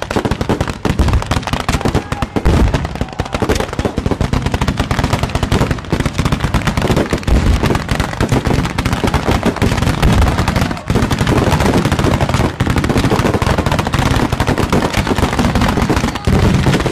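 Ground fireworks going off in a continuous rapid run of bangs and crackles, many a second, getting louder near the end.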